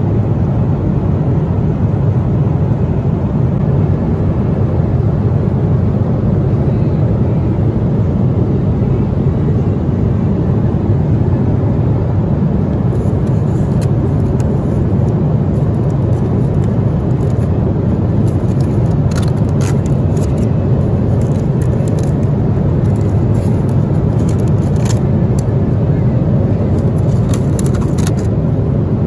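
Steady low drone of an airliner cabin in flight. From about halfway, light crinkling as the foil lid of a meal tray is handled.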